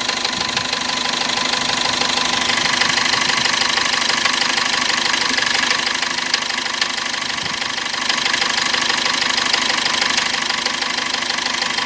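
Cummins diesel engine running with a rhythmic knock, which came on after the engine bound up briefly on the road; its cause is unknown. The sound dips a little for about two seconds past the middle.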